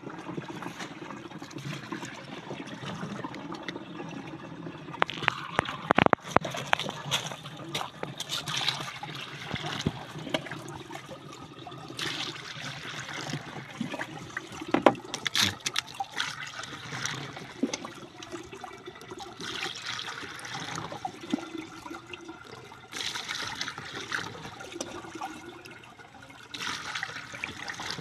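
Water poured into the open plastic tank of a knapsack sprayer, splashing and trickling in several separate pours, with a few sharp plastic knocks.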